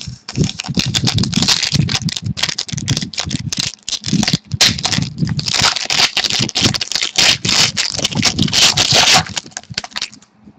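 Trading cards and their packaging being handled close to the microphone: a busy run of rustling, scraping and clicking, stopping shortly before the end.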